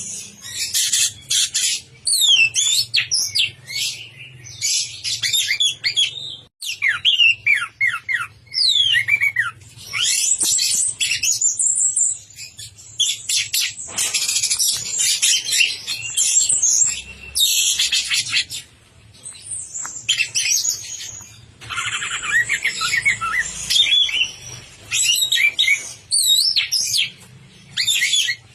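Orange-headed thrush (anis merah) singing nonstop: fast, loud runs of varied warbling and sliding whistled notes, a few seconds each, with short breaks between them. This constant singing is what bird keepers call 'gacor', the bird in full song.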